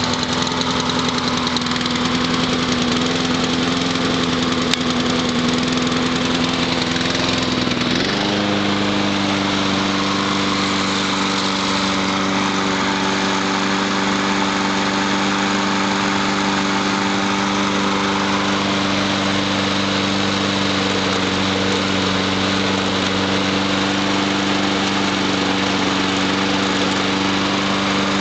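Honda four-stroke engine on a Yard Man self-propelled mulching lawn mower running steadily. Its speed steps up sharply about eight seconds in, then holds steady.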